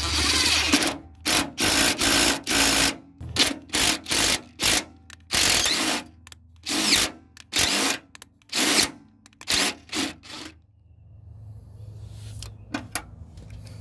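Cordless drill spinning a socket extension to drive an M6x1 bolt into a freshly tapped hole. It runs in about fifteen short pulses, which stop about ten and a half seconds in.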